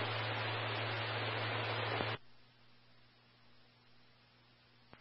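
Police scanner radio hiss with a steady low hum, left open after a transmission. About two seconds in it cuts off suddenly as the squelch closes, leaving near silence.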